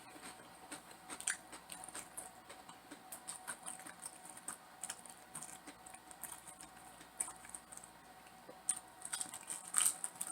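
Close-up eating sounds: chewing and biting, with many small crunchy, wet clicks, busier near the end.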